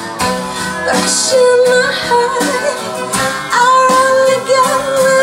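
A rock song played from a vinyl LP through hi-fi loudspeakers in the room: a female singer holds long notes over guitar.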